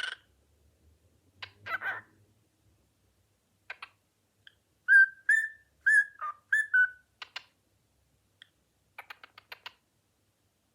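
Cockatiel whistling a quick run of about five short notes in the middle, with brief scratchy chatter calls before and a burst of fast clicking chatter after.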